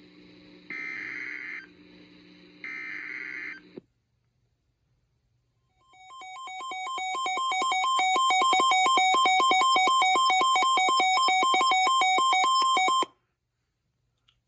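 Emergency Alert System SAME header: the last two of its data bursts, each a harsh digital warble about a second long, signal the start of a new alert. After a short pause comes the EAS two-tone attention signal, which fades in, is held steady for about seven seconds, and cuts off abruptly.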